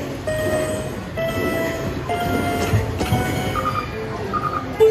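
Cats, Hats and More Bats slot machine playing its bonus tally: a run of held electronic tones, each a step higher than the last about once a second, while the hold-and-spin bonus prizes are added into the total win. A quick pair of bleeps comes near the end.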